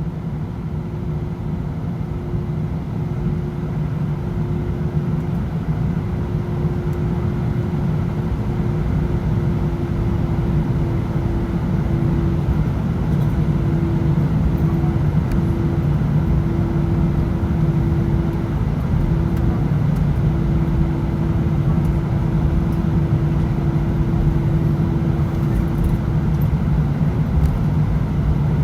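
Airbus A319 cabin noise while taxiing: a steady low engine and airframe rumble with a constant hum-like tone, growing slightly louder over the stretch.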